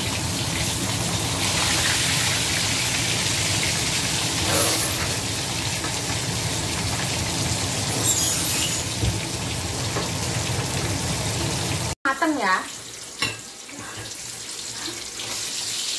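Whole fish sizzling as it shallow-fries in hot oil in a stainless steel wok. About twelve seconds in, the sound cuts off briefly and returns as a quieter sizzle.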